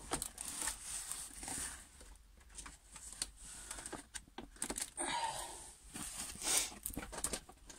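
Rustling and crinkling of a diamond painting canvas being handled and lifted, with scattered sharp clicks and taps.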